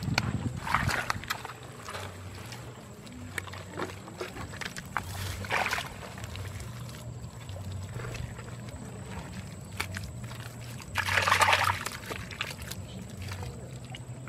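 Bare hands digging and scooping in wet mud and muddy water: irregular wet squelches and splashes, the longest and loudest about eleven seconds in.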